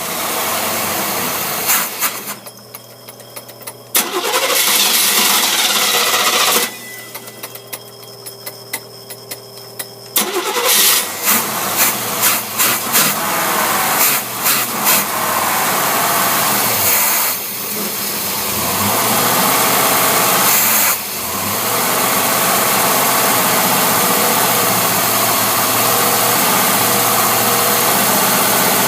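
Engine fed by a dirty, un-rebuilt Rochester Quadrajet four-barrel carburetor being started: two spells of cranking with quiet gaps, then several seconds of uneven sputtering firing before it catches and settles into a steady run for the last several seconds. The choke is maladjusted and stuck closed, so it starts hard and does not run smoothly.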